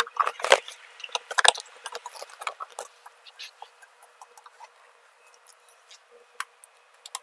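Small metal clicks and scraping of a hex key turning a small bolt, most of them in the first three seconds, then only scattered ticks.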